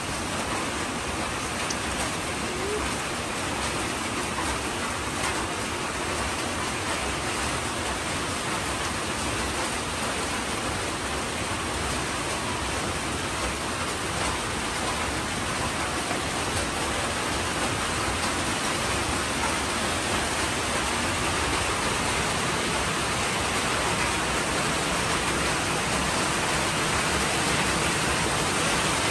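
Steady rain falling, an even hiss that grows a little louder toward the end.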